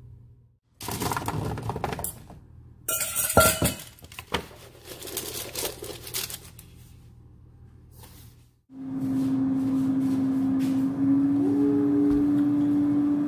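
Squash cubes and a metal spoon clattering against a stainless steel pot and a metal baking sheet as the cubes are tipped out and spread, with one loud ringing clang about three seconds in. After a quiet stretch, a steady hum with a low tone starts abruptly.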